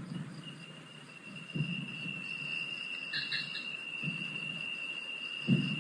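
Crickets trilling at night as one steady high-pitched tone, with two low, dull thumps: one about a second and a half in and a louder one near the end.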